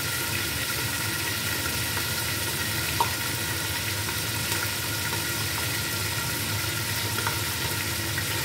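Sliced onions frying in oil in a pot, a steady sizzle, with one sharp click about three seconds in.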